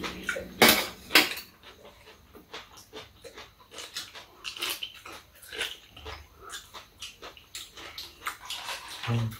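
Mouth sounds of eating: chewing, lip-smacking and slurping from spoons, with clicks of a spoon and chopsticks against bowls and a metal tray. Two loud sharp knocks come about half a second apart near the start.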